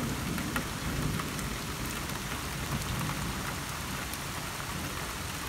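Steady rain falling, with scattered single drops ticking sharply over an even hiss and a low steady rumble underneath.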